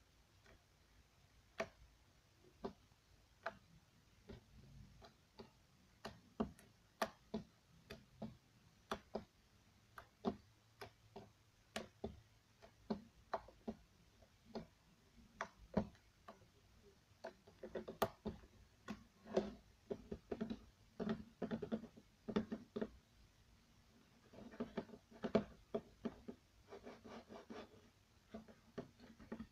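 Slime being stretched and squished by hand and dropped on a wooden table, making irregular sticky clicks and small pops. The clicks come thicker and squelchier in the second half.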